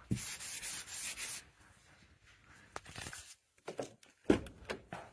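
A hand rubbing across a dusty surface, a scratchy rub for the first second and a half. It is followed by a few scattered clicks and knocks, the loudest a thump about four seconds in.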